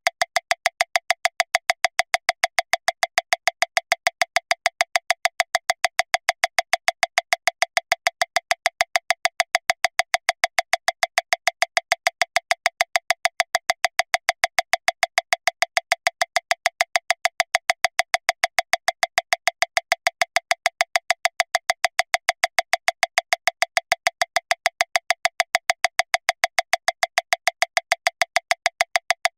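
Metronome clicking steadily at 405 beats per minute, a little under seven clicks a second, each click the same sharp tick.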